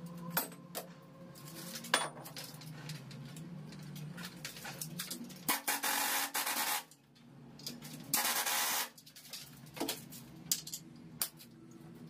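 Pneumatic impact wrench driven by compressed air in two short runs of about a second each on the top nut of a coil-spring shock absorber strut, among scattered metal clinks and knocks of the strut and tools.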